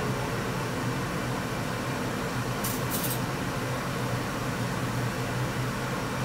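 Steady fan-like mechanical hum and hiss in a small kitchen, with two short, high rustles close together about three seconds in.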